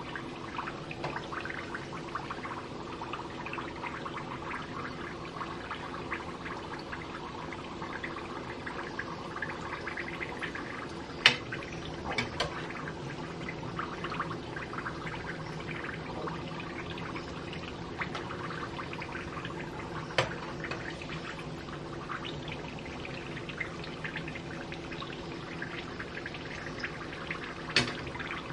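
Egg-roll wrappers deep-frying in hot vegetable oil in a pot: a steady crackling sizzle of bubbling oil. A few sharp clinks of a metal skimmer against the pot break through it, the loudest about eleven seconds in.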